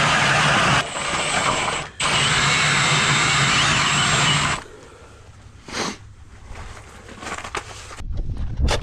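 Gas-powered ice auger engine running hard while drilling through lake ice, dipping briefly twice, then stopping a little over halfway through. Scattered knocks and scraping follow near the end.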